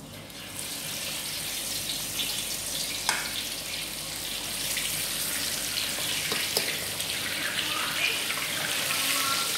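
Pieces of coated fish sizzling in hot oil in a wok. The hiss starts as the first piece goes in and grows louder as more are added, with scattered pops and crackles.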